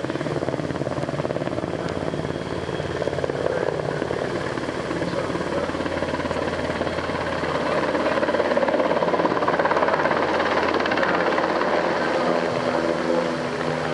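NH90 military helicopter flying low overhead: the fast, steady chop of its main rotor over the engine noise. It grows louder about eight seconds in and eases again near the end.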